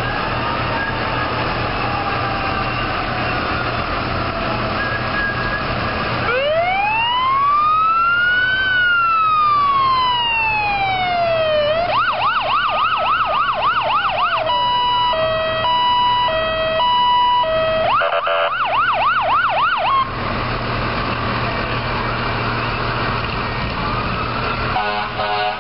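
Fire truck's electronic siren cycling through its tones: about six seconds in, a slow wail rises and falls, then a fast yelp, then a high-low two-tone, then a faster yelp, and it cuts off suddenly at about twenty seconds. Heavy truck engines and tyres run underneath throughout, as the fire vehicles pass slowly by.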